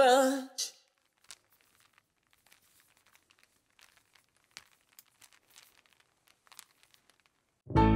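A young singer's last held note, wavering in pitch, fades out within the first half second. Then there is near silence with a few faint scattered clicks, until music with singing starts just before the end.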